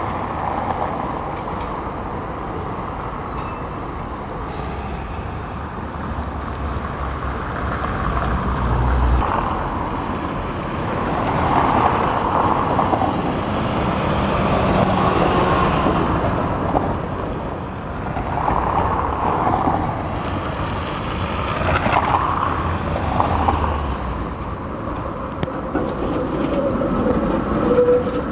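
City street traffic: trams and an articulated bus passing, their motor and wheel noise swelling and fading several times as each goes by.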